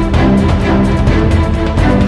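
Background music: an upbeat instrumental track with a steady beat.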